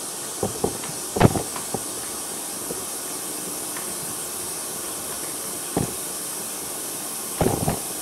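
Knocks and rustles of a 100-foot 12-gauge speaker cable being handled and uncoiled by hand, loudest about a second in, with another knock a little before six seconds and a cluster near the end. A steady hiss runs underneath.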